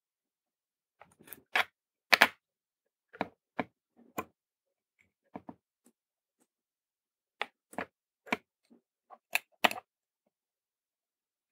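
Irregular sharp clicks and ticks, about one or two a second with silence between them, as header pins are soldered onto a small circuit board with a soldering iron. The loudest click comes about two seconds in.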